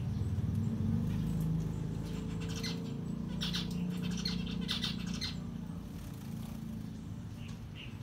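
Small caged finches chirping in short, sharp calls, with a quick run of chirps in the middle and single ones near the start and end, over a steady low hum.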